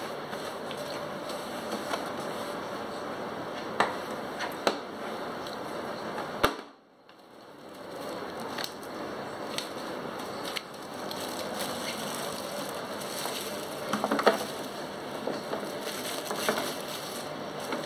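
A few sharp plastic clicks as a black plastic tool case is opened, then crinkling of a clear plastic bag as the rotary hammer inside it is handled, over a steady background hiss.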